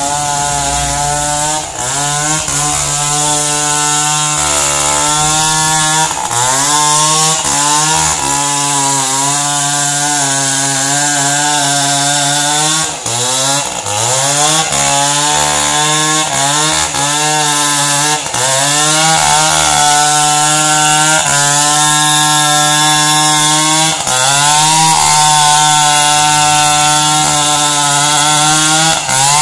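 Two-stroke chainsaw cutting into a thick tree trunk. It runs at high revs throughout, and its pitch sags and climbs back again and again as the chain bites into the wood and frees up.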